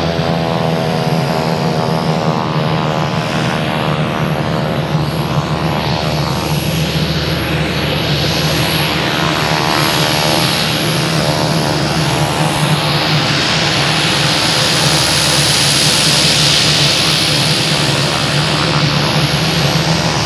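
Rolls-Royce 250 turboprop of a Cessna P210N Silver Eagle conversion running at taxi power, with a thin, steady high turbine whine over the propeller's hum. The rushing noise grows a little louder toward the end.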